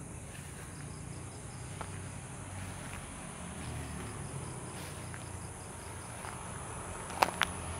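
Insects chirping steadily, with two sharp clicks close together near the end.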